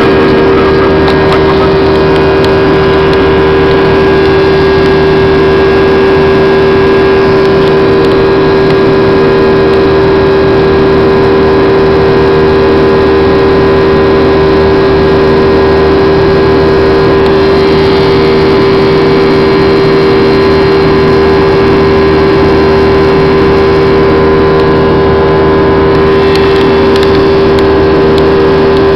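Jet airliner engine noise heard inside the cabin during the climb after takeoff: a loud, unbroken drone with one strong steady hum and fainter steady tones above it.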